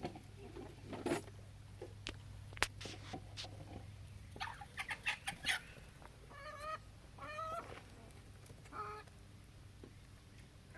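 A chicken clucking: three short calls in the second half, with light rustling and handling clicks before them.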